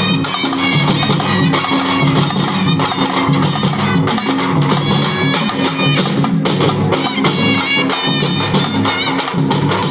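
Dappu frame drums beating a fast folk rhythm, with a wind instrument playing a melody over a steady held drone.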